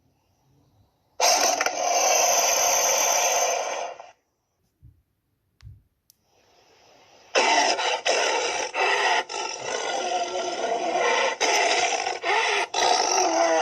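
Tyrannosaurus roar sound effects: a harsh, raspy roar of about three seconds, then after a pause a longer one of about seven seconds, broken by brief cut-outs. Two faint low thuds fall in the pause.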